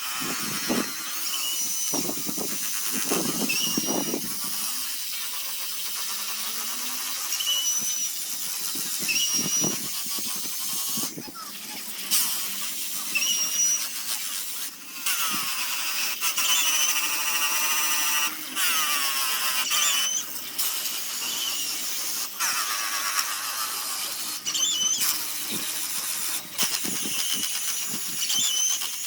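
Power sanding tool running on zelkova wood with a high-pitched whine that repeatedly dips and recovers in pitch, and squeals.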